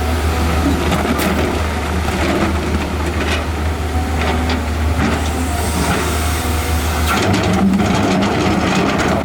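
Excavator's heavy diesel engine running under load, with a few short knocks and clanks from the machine at work. The engine note steps up about seven seconds in.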